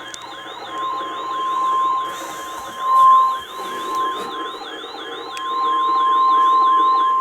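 NOAA Weather Radio 1050 Hz warning alert tone, one steady high beep, sounding together with a warbling electronic siren alarm that rises and falls about two and a half times a second.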